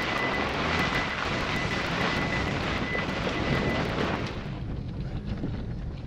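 Car driving slowly over a rough dirt and gravel track: a dense, noisy rumble of tyres, stones and suspension, with a faint steady whistle over it for the first few seconds. About four seconds in, the sound thins and drops a little in level.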